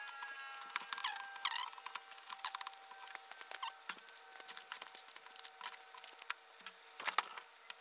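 Thin plastic window-tint film being handled and lifted off a headlight lens, crinkling and crackling in a run of irregular sharp clicks and rustles, with a louder cluster near the end.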